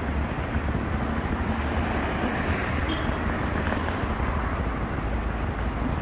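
Steady street traffic noise from a town road with buses and cars, heavy in low rumble.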